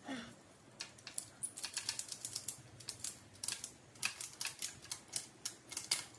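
Ratchet tie-down strap being cranked tight, its metal ratchet buckle giving quick runs of sharp clicks with short pauses between strokes.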